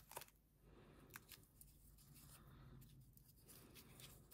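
Faint handling sounds near silence: foam sheet and masking tape being wrapped around a small wooden part, a few soft clicks and rustles.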